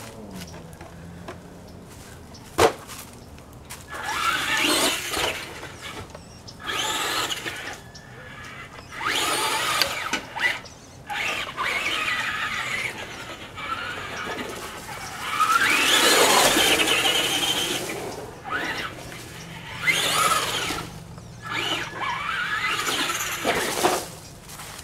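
Traxxas Rustler XL-5 RC truck's brushed electric motor whining in repeated bursts of throttle, the pitch rising and falling with each burst. A single sharp knock comes about two and a half seconds in.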